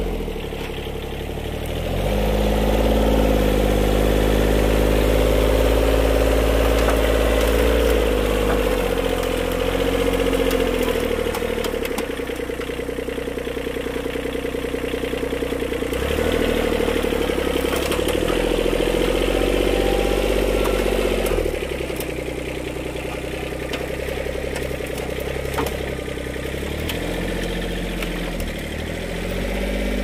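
Kubota compact tractor's diesel engine running. It revs up about two seconds in and holds a high steady speed, drops back to a lower speed a little past the middle, and picks up again near the end.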